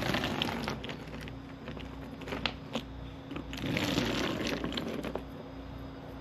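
Hard plastic 3D-printed flexi lizards being handled: rustling and light clicking of the jointed segments, with a few sharp clicks around the middle and a longer rustle just after. A steady low hum runs underneath.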